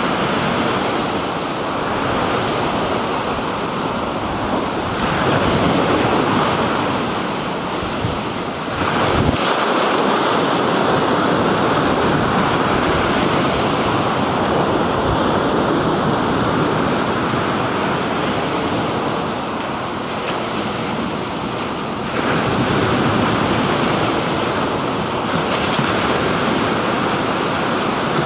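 Black Sea surf washing onto the shore, a steady rush that swells and eases every few seconds, with wind buffeting the microphone.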